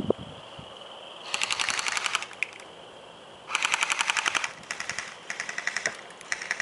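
Airsoft guns firing on full auto: two rapid bursts of about a second each, then several shorter bursts.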